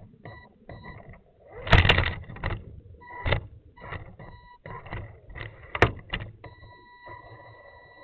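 Axial Deadbolt RC crawler working over concrete steps: its electric drive whines in short on-off bursts of throttle, with clunks and rattles from the truck. The loudest knocks come about two seconds in and near six seconds. From about six and a half seconds a steady whine holds.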